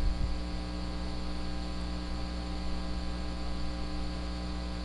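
Steady electrical mains hum with its overtones, and a faint hiss, in the recording.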